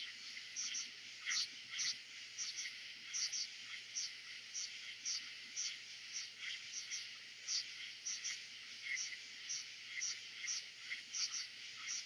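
Night chorus of katydids, crickets and frogs blended into one dense, high-pitched shrill. Short, louder chirps pulse through it about twice a second, unevenly.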